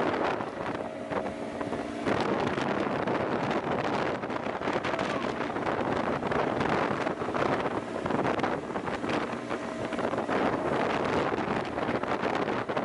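Strong wind buffeting the microphone on a small motorboat crossing at sea. The boat's engine is audible underneath as a steady drone that comes through more clearly now and then.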